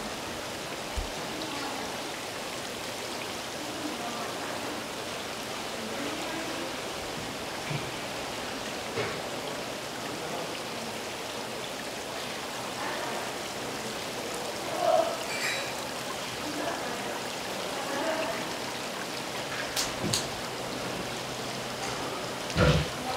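Steady rush of water running into and bubbling through live-fish tanks, with faint voices and a few sharp knocks and clatters, the loudest near the end.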